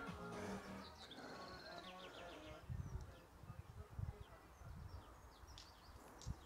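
Faint birds chirping outdoors: a short rapid trill of high notes, then scattered brief chirps, over a low background with a few soft thuds.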